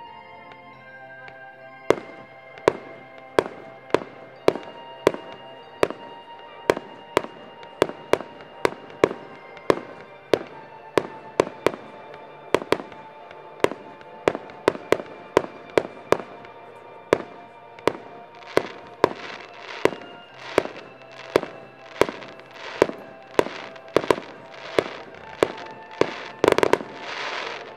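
Fireworks going off in a steady run of sharp bangs, nearly two a second, over background music. In the later part each bang trails a short rush of noise, and a longer, louder burst comes near the end.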